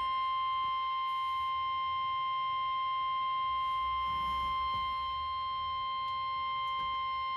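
NOAA Weather Radio warning alarm tone: a single steady 1050 Hz tone with faint overtones, held without a break. It signals that a weather warning broadcast is about to follow.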